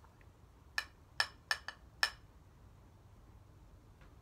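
Glass jar clinking against a plate: five sharp, ringing clinks over about a second, starting about a second in.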